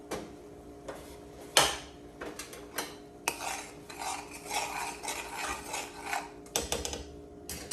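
Cooking utensils against cookware: scattered clinks and a sharp knock about one and a half seconds in, then a few seconds of stirring and scraping in a pot or pan, over a faint steady hum.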